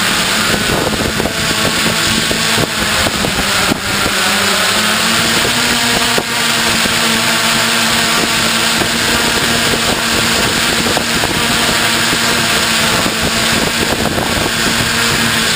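Multicopter drone's motors and propellers running steadily, a constant hum heard from the drone's own camera, with some wind buffeting on the microphone in the first few seconds.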